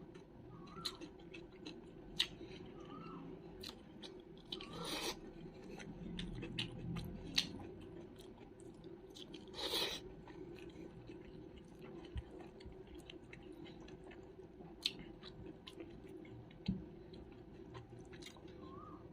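Close-miked chewing and wet mouth clicks of someone eating pork curry with rice, with two louder, crunchier bites about five and ten seconds in.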